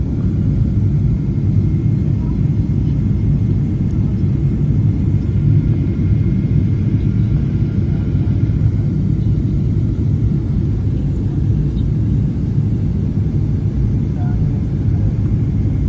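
Airliner cabin noise in flight: the steady low rumble of the engines and rushing air, with a faint steady high whine above it.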